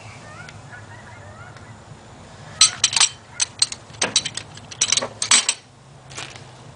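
A quick run of sharp metallic clinks and rattles, like hand tools or metal parts being knocked and handled, starting a little over two seconds in and stopping about three seconds later.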